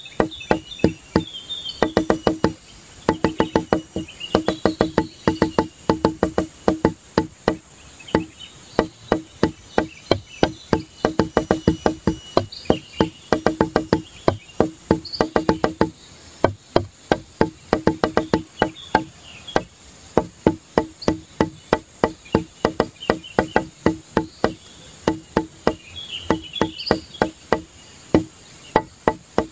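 Background music track built on a rapid, evenly repeated knocking note, like a wood block or plucked instrument, about five strokes a second in runs with short breaks.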